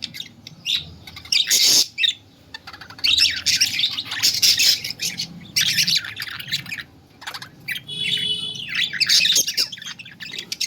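Pet lovebirds screeching, harsh high-pitched squawks in repeated clusters of bursts broken by short pauses.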